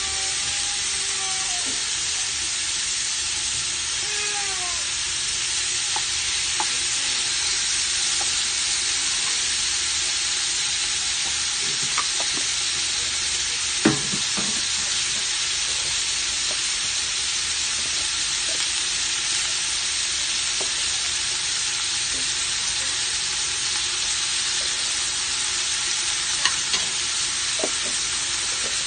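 Chicken pieces sautéing in an aluminium pot with a steady sizzle, margarine melting in among them. A few sharp knocks, the loudest about halfway through.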